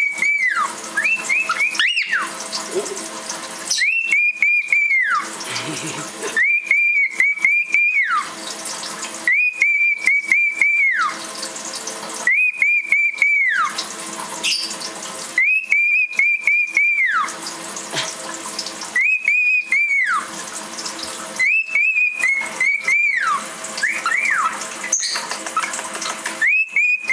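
Cockatiel whistling the same short phrase over and over: a few quick high notes and then a falling glide, repeated every two to three seconds. A tap runs steadily underneath.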